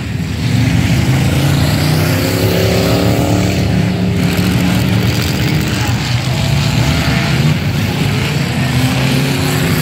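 Engines of several racing trucks running hard on a speedway track, overlapping, with the pitch rising twice as trucks accelerate.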